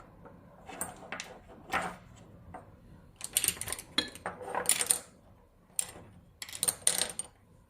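Paintbrush clinking and scraping against a ceramic dish or water bowl as it is wetted and scraped flat, in three short bouts.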